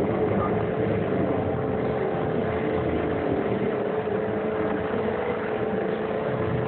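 Steady background noise with a constant hum running through it, and no speech.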